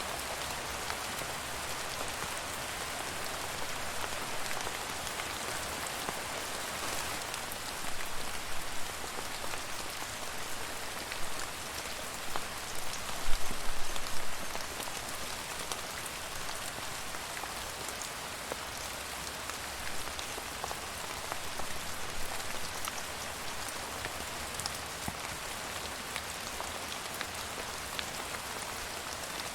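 Steady rain falling, an even hiss with individual drops pattering, and a few louder drop hits around the middle.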